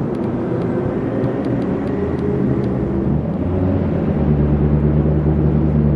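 Turbocharged 2,256 cc five-cylinder engine of a 1981 Audi Urquattro race car idling steadily, growing louder and more even about four seconds in. Faint light clicks sound over it in the first few seconds.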